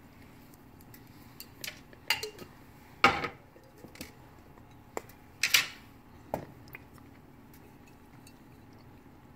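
A string of sharp knocks and clinks as a glass jar of Heinz chicken gravy is tipped upside down and tapped against a skillet to pour the gravy, with the two loudest knocks about three seconds and five and a half seconds in.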